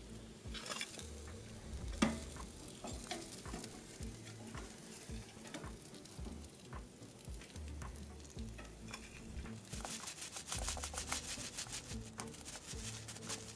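Freshly glazed pork ribs, just out of the smoker, sizzling and crackling, with a sharp knock about two seconds in and a denser run of rapid crackles near the end.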